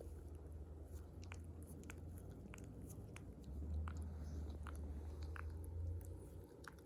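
A Yorkshire terrier's mouth: scattered small wet clicks and smacks of lips and tongue. Under them is a low steady hum that grows louder for a couple of seconds in the middle.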